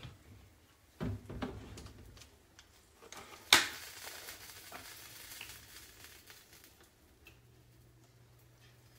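Kitchen handling of a plastic vegetable oil bottle: a couple of knocks about a second in, then a sharp snap as the cap comes off, followed by the soft sound of oil being poured into a glass mixing bowl.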